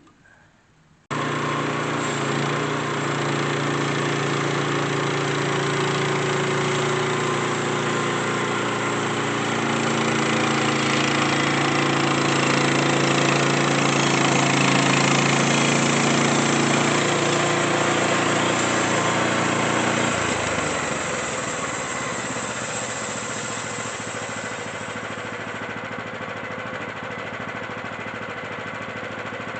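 Portable sawmill's engine running steadily under load. It comes in abruptly about a second in, and about two-thirds of the way through its deepest part drops away and it gets somewhat quieter.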